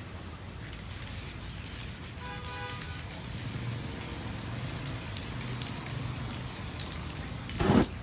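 Aerosol spray paint can spraying in a steady hiss as grey shading is laid onto a canvas, with a short louder clatter near the end.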